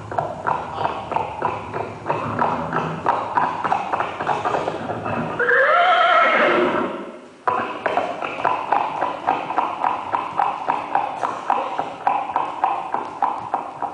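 Horse hooves clip-clopping in a steady walking rhythm, about four to five hoofbeats a second. A horse whinnies about five seconds in, rising then falling, and the sound cuts off suddenly just after the whinny before the hoofbeats go on.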